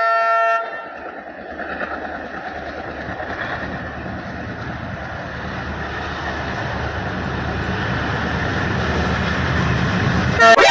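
Diesel locomotive hauling passenger coaches approaching: a short blast of its multi-tone horn, then a rushing rumble of engine and wheels that grows steadily louder. A sudden sharp noise comes just before the end.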